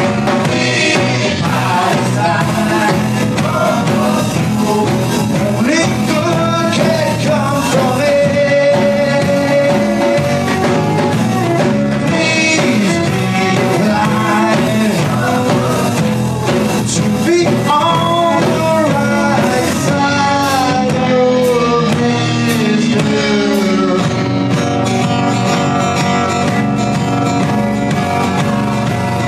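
Live band playing an upbeat folk-rock song: fiddle with sliding notes over strummed acoustic guitar, electric bass and a drum kit.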